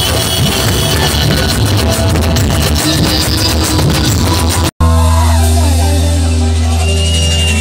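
Loud amplified music from a stage sound system. About two-thirds of the way through it cuts off abruptly, and a different passage of music with a steady deep bass and long held notes starts.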